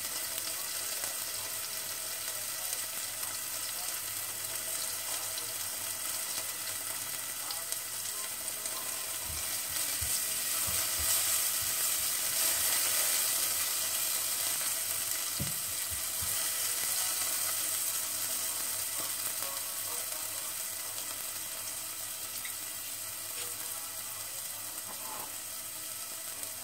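Diced carrot, green chilli and spring onion sizzling in oil in a nonstick pan at medium heat, a steady hiss as the vegetables sauté. Midway the sizzle swells for a few seconds with a few soft knocks as a silicone spatula stirs them.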